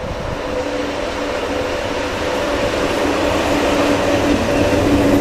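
VL80S electric locomotive hauling a freight train, approaching with a steady hum that grows louder as it nears.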